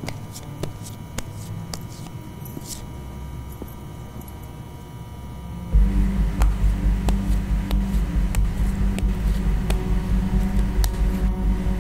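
Film soundtrack: a faint low hum with scattered clicks, then about six seconds in a loud low drone starts suddenly and pulses several times a second.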